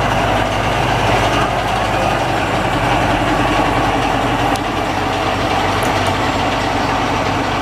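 Diesel engine of a small DR class 102 shunting locomotive running at a low, steady note as it rolls slowly past. It gets a little quieter about halfway through as it moves away.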